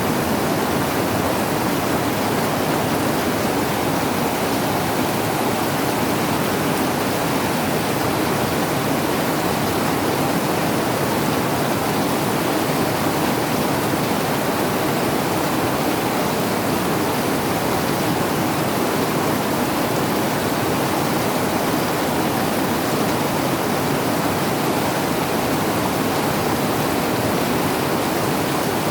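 Rain pouring down steadily: a dense, even hiss without breaks.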